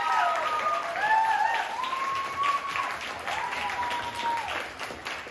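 Small audience clapping, with a few long cheering whoops over the applause; the clapping thins out and fades toward the end.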